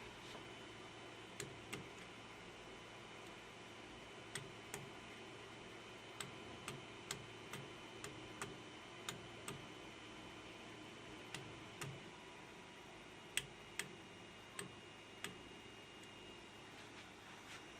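About twenty sharp clicks at irregular intervals, some in close pairs, over a faint steady electrical hum with thin high whining tones.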